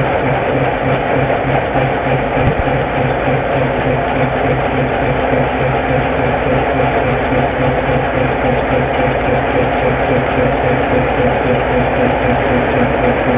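Diesel engine of a Whitcomb 65-ton diesel-electric locomotive running steadily at idle, with an even, rhythmic mechanical clatter.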